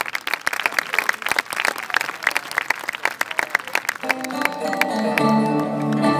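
Audience clapping. About four seconds in, music with held notes enters and swells.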